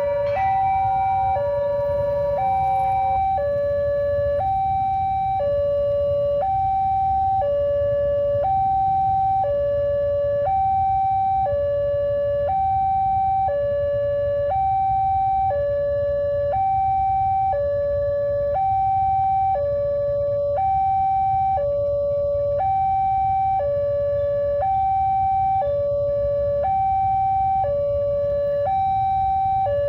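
Railway level-crossing warning siren sounding a steady two-tone hi-lo alarm, the pitch switching about once a second. For the first few seconds a second warning tone overlaps it. A low rumble runs underneath.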